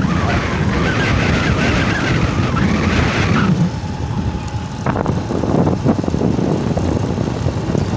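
Steady road and engine noise from a vehicle travelling along a highway, with wind on the microphone. A brighter hiss rides on top for the first three seconds or so, then drops away.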